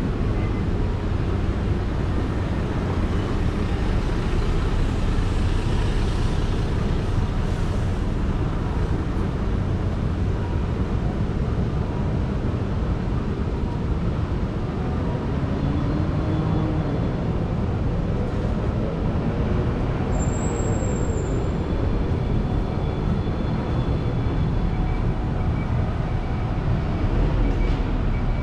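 City street traffic: a steady run of passing cars and other vehicles, with a brief high squeak about twenty seconds in.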